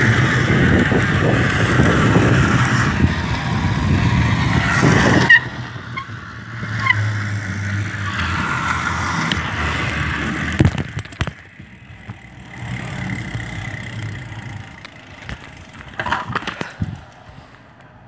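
Riding noise from a bike whose wheel has a soda can caught on it, the can rubbing against the tyre hard enough to smell of burning rubber, mixed with wind on the microphone. The loud noise cuts off sharply about five seconds in, leaving quieter rustling and a couple of short squeaks. It drops again about eleven seconds in, with a few clicks near the end.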